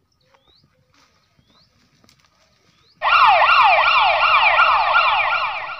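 Police siren starting suddenly about three seconds in, wailing rapidly up and down about three times a second and cutting off abruptly. Before it, only a few faint bird chirps.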